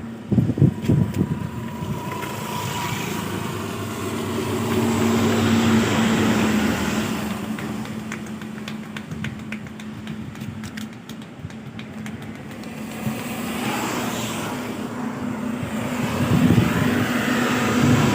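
Steady motor hum amid road traffic noise, with scattered clicks and knocks, most of them in the middle.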